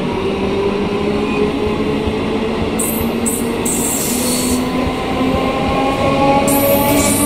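Conventional EMU local train running past at close range: the electric traction motors whine with a slowly rising pitch as the train gathers speed over a constant rumble of wheels on rails. Two spells of high hiss come in about three seconds in and again near the end.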